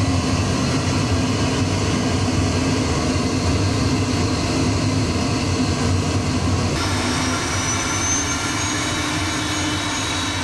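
CNC router vacuum hold-down table's vacuum motor running, a loud steady rushing noise as it pulls the board down onto the thin foam pad. About seven seconds in, the sound's upper part shifts and a faint high-pitched whine rises and then holds.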